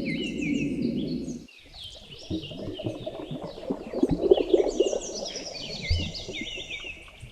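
Small birds chirping repeatedly with short high notes, over a low noisy background that cuts off about a second and a half in and gives way to scattered low rustling.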